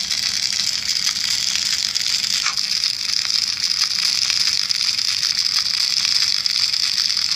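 Deep-frying sizzle: a steady hiss of hot oil with fine crackles running through.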